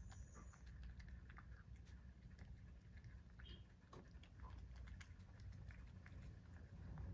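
Faint, irregular small clicks of a cat chewing and licking soft chopped carrot and shiitake with bonito flakes off a ceramic plate, over a low steady hum.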